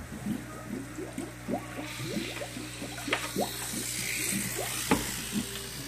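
Water pouring and gurgling in a glass jar: a string of short rising bubbly blips, with a brighter splashing hiss over the middle couple of seconds.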